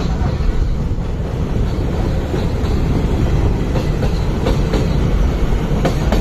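Train running on the rails: a steady, heavy rumble with scattered clicks of the wheels over rail joints.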